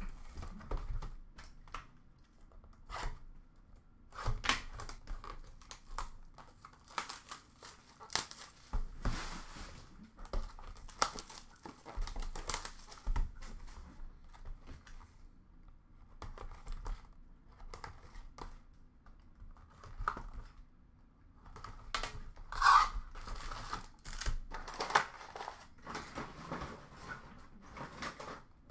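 Boxes of Upper Deck Allure hockey cards being handled and unwrapped: plastic wrap tearing and crinkling, with scrapes and taps of cardboard, in irregular bursts that grow louder near the end.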